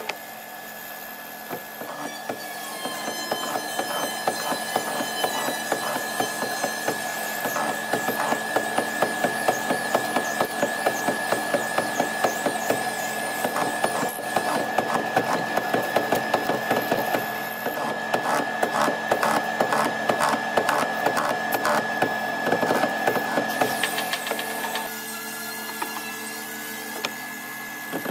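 Mortising machine running with a steady motor whine while its square hollow chisel is plunged repeatedly into a timber, making a rapid series of knocks and chip-cutting noise through the middle. The sound changes near the end.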